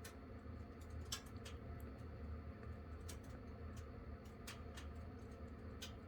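Firewood burning in a wood-burning stove, giving off faint, sparse crackles and snaps, about half a dozen sharp pops, over a steady low rumble.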